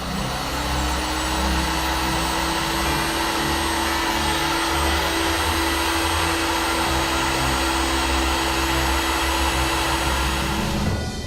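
Electric heat gun blowing a steady rush of hot air with a constant fan-motor hum, switched off near the end.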